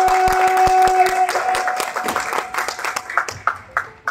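Crowd clapping in a steady rhythm, about three claps a second, over a long note held at one pitch that breaks off about a second in.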